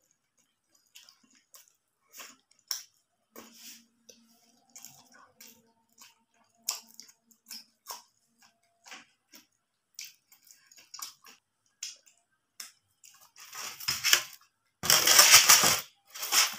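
Close-up eating sounds: scattered short crackly clicks and wet squishes of chewing spicy chaat, then near the end a loud crackling crunch lasting about a second and a half as a crisp fried samosa is crushed by hand.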